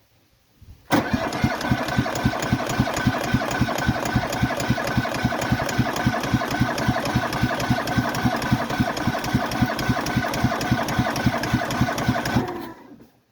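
Cub Cadet Series 2000 lawn tractor's starter cranking the cold engine for about eleven seconds, with an even, unchanging chug of compression strokes and a steady starter whine. The engine does not catch, then the cranking stops. This is hard starting after eight months of sitting, with fuel not yet getting through.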